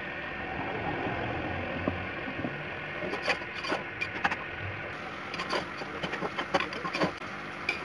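Shredded carrots hissing and bubbling in an open aluminium pressure cooker as their water is cooked off, while a metal slotted spoon stirs them. From about three seconds in, the spoon scrapes and clicks against the pot many times.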